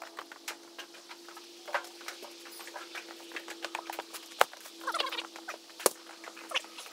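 Footsteps on wooden bridge planks and heavy bags of concrete mix being set down on a stack, with two sharp thuds about four and a half and six seconds in.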